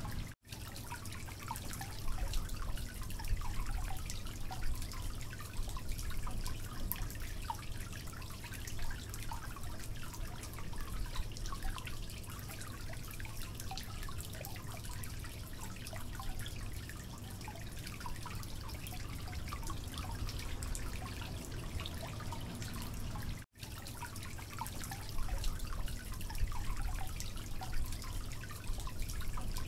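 Oil sizzling and crackling around egg-coated bread slices frying in a black iron pan, with a steady low hum beneath. The sound cuts out briefly twice.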